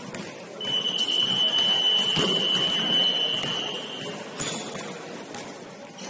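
A long, steady high-pitched signal tone, one held note of about three and a half seconds, over the noise of a gym. A single thud falls about two seconds in.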